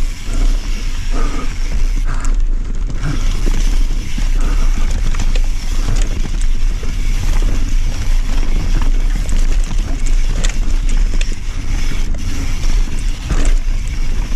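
Mountain bike descending a dirt and rock trail: steady wind rumble on the microphone with tyre noise and frequent knocks and rattles from the bike over rough ground.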